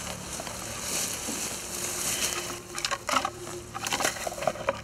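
Dry willow brush rustling and twigs crackling as a hunter bends and pushes into the shrubs, with a run of sharp snaps in the second half.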